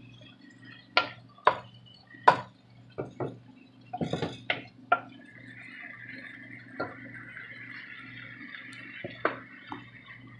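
Wooden spatula knocking and scraping against the sides of a pot while stirring chicken pieces: about ten sharp, irregular knocks, with a low steady hum underneath.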